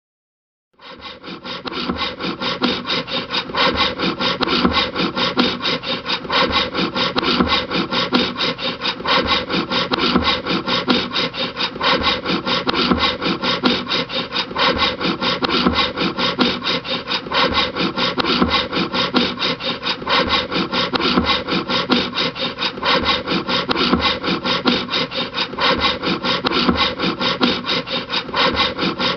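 Hand saw cutting through a wooden board in steady, rhythmic back-and-forth strokes. It starts about a second in and builds up over the first few seconds.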